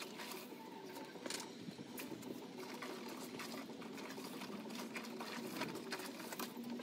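Wet feathers being pulled by hand from scalded chickens: a rapid, continuous crackling and rasping.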